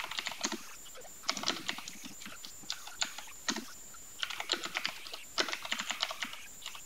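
Typing on a computer keyboard: quick bursts of keystrokes, each run lasting about a second, broken by short pauses.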